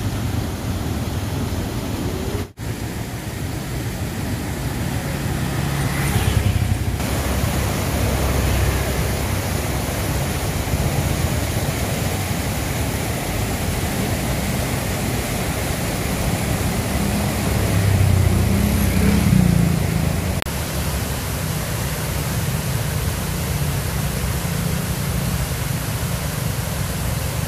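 Steady rush of river water flowing through and over a concrete river weir. A deeper rumble swells twice, around six seconds in and again near twenty seconds in.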